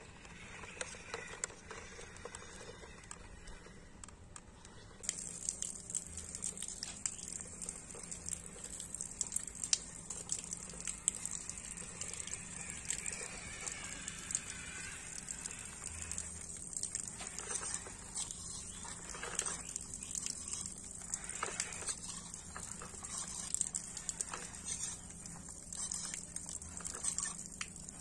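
Small toy RC tractor and trailer wheels rolling and splashing through shallow muddy water, as an irregular patter of small splashes and ticks. A steady high hiss comes in abruptly about five seconds in.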